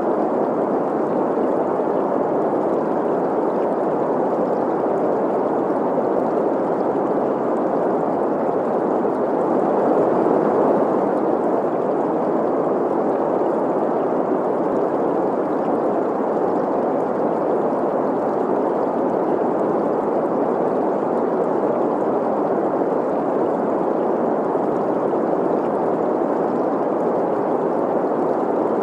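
Steady synthesized green noise, a hiss centred in the middle frequencies, blended with the rush of a flowing stream. It swells slightly about ten seconds in.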